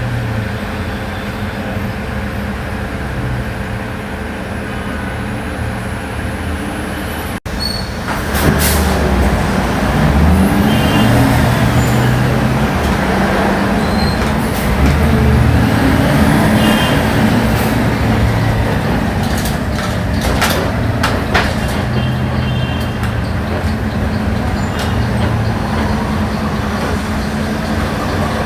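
Natural-gas city bus (Volksbus 17-230 OD GNV chassis) running with a steady engine drone; after a brief cut about seven seconds in it gets louder, the engine pitch rising and falling several times as the bus moves off and works through its gears, with a few clicks and knocks along the way.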